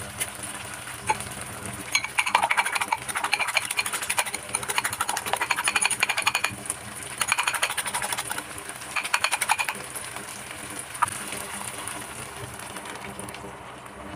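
A wire whisk beats eggs in a ceramic bowl, making rapid clinking in four bursts between about two and ten seconds in. Underneath is the steady sizzle of tomato slices frying in butter and olive oil. The sizzle dulls near the end as the beaten eggs are poured into the pan.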